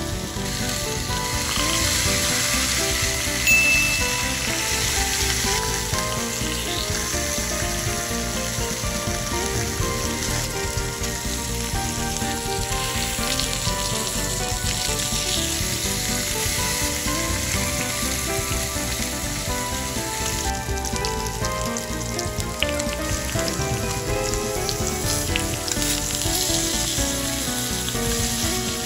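Steak searing in a hot, oiled ridged grill pan: a continuous loud sizzle of meat frying.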